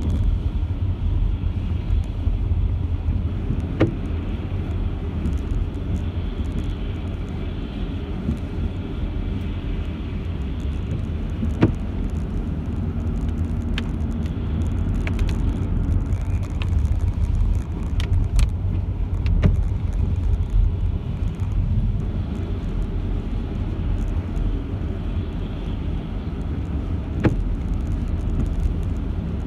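A car driving on a wet road, heard from inside the cabin: a steady low rumble of engine and tyres, with scattered sharp ticks every few seconds.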